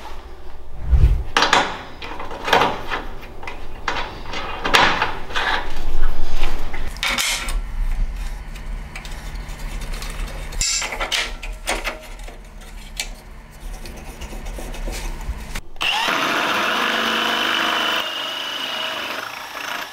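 Steel tubing and clamps clanking and knocking on a steel welding table as the tube is set up and clamped. For the last four seconds or so, a cordless drill runs steadily with a high whine as it drives a hole-saw tube notcher into steel tubing.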